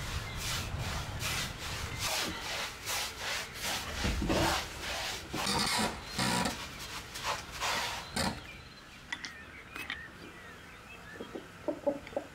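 A hand tool rubbed back and forth over a plastered wall in steady abrasive strokes, about two a second, stopping about eight seconds in. Near the end come a few light clicks of a lighter being struck.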